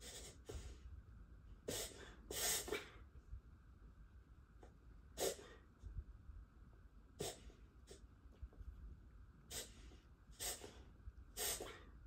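A beagle making short, noisy breaths through the nose, about eight bursts a second or two apart, two of them close together early on. It is a spell that is taken for reverse sneezing, with the dog seeming to struggle for breath.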